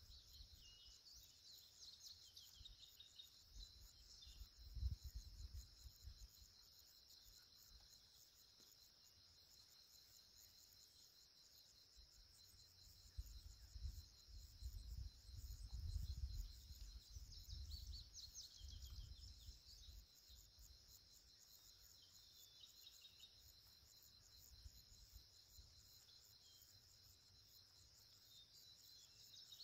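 Faint steady chorus of insects trilling, with a few scattered bird chirps. A low rumble swells briefly about five seconds in and again through the middle.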